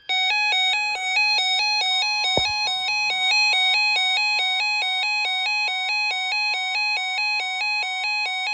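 Electronic weather-alert alarm: a warbling beep that switches rapidly back and forth between two pitches, several times a second, with a steady higher tone joining about a second in. It announces an incoming severe thunderstorm warning.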